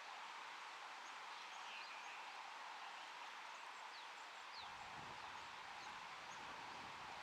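Faint outdoor ambience: a steady hiss with scattered brief, high chirps from distant small birds. A low rumble joins a little over halfway through.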